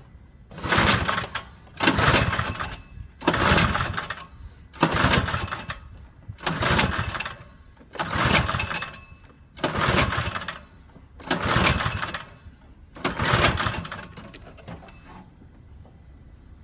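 Recoil starter of a Craftsman snowblower's 123cc four-cycle overhead-valve engine being pulled about nine times in a row, one pull roughly every second and a half, the engine turning over on full choke but not catching, with a pause after the last pull.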